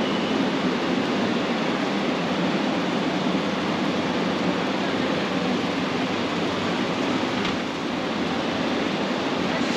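Steady, even rushing background noise of a large warehouse store's interior, such as its air handling, with one faint click about seven and a half seconds in.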